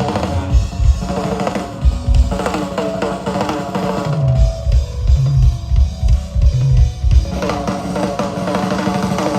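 A rock drum kit played live in a drum feature, with a steady kick drum and snare pattern and low pitched notes running under it.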